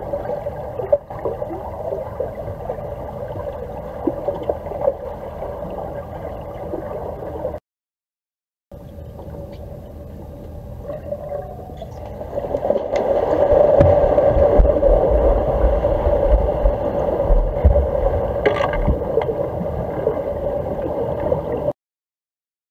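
Underwater pool sound picked up by a submerged camera: a steady hum with water gurgling and low rumbling, growing louder about halfway through. It cuts out completely for about a second twice, once in the middle and once near the end.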